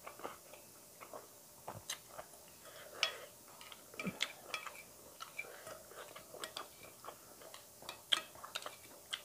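Close-range eating: chewing, with scattered small clicks and taps of a plastic spoon against a bowl of soup while fried fish is picked apart by hand.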